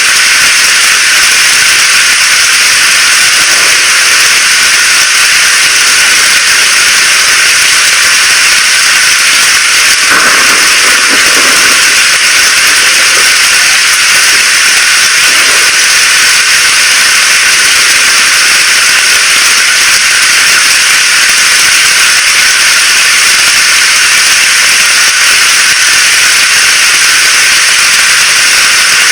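Heavy rain falling, a loud steady hiss with no let-up.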